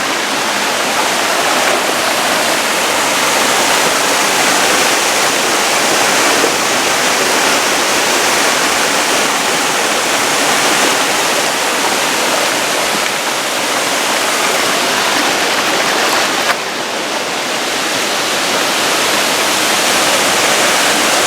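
Seasonal canyon waterfall running full after heavy rain: a loud, steady rush of falling water with no pitch, dipping briefly about three-quarters of the way through.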